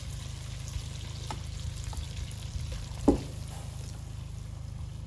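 Sage and butter sauce sizzling gently in a non-stick wok as boiled ravioli are laid into it, with small ticks of a utensil and one sharp knock against the pan about three seconds in.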